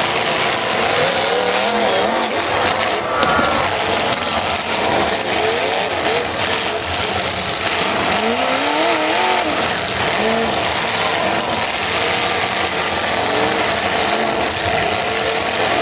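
Demolition derby cars' engines revving hard as the cars ram and push one another, the pitch rising and falling.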